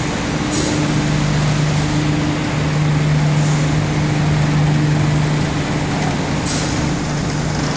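Industrial processing-plant machinery running: a loud, steady drone with a constant low hum. A few short hisses break through it, clearest about half a second in and again near the end.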